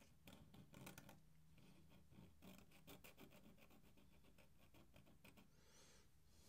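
Faint scratching of a fine ink brush stroking across drawing paper, a run of quick light strokes mostly in the first half.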